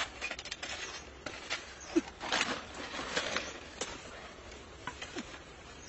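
Leafy plants and stems rustling and snapping as they are pulled and pushed aside by hand, loudest in the middle, with scattered light clicks and two short low squeaks.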